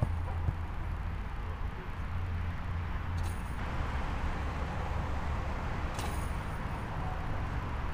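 Steady low rumbling background noise, with a faint high click about every three seconds.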